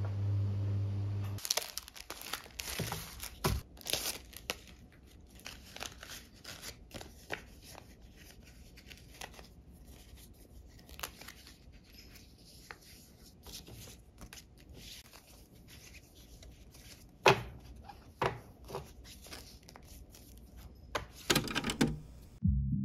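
Paper rustling and crinkling as paper Raya money packets are handled, folded and filled by hand on a wooden table, with many small clicks and a few sharper knocks. Music plays briefly at the very start.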